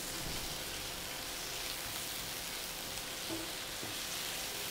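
Onions, green chillies, curry leaves and freshly added ginger garlic paste sizzling steadily in groundnut oil in a pan, the base for a masala paste being fried. A flat spatula stirs and scrapes the pan lightly a couple of times.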